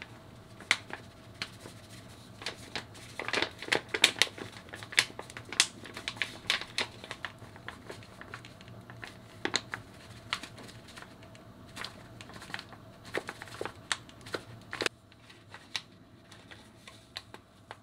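Paper flour bag crinkling and crackling as flour is shaken out of it onto a kitchen scale. The crackles come thick and irregular a few seconds in, then thin out after about fifteen seconds.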